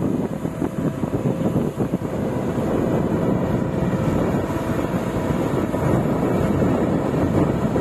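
Hyundai R130 crawler excavator's diesel engine running steadily under working load.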